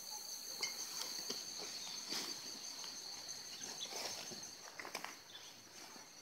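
Insects chirring in a steady high-pitched drone, with scattered rustles and light clicks over it.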